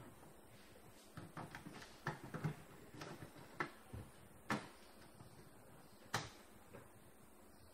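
Small clicks and knocks of plastic and metal parts being handled on a copier's fuser unit: a scatter of light taps, then two sharper clicks in the second half.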